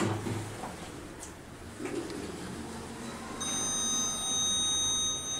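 Click of an Otis Gen2 elevator's hall call button being pressed. About three and a half seconds in, a steady high-pitched whine starts and runs for over two seconds as the glass landing doors open.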